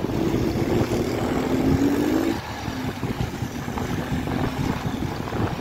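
Motorcycle engine running under way, with road rumble. Its pitch climbs gently, then drops and gets quieter about two and a half seconds in.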